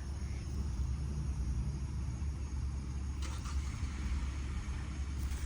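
A steady low rumble, with a few faint clicks a little past halfway.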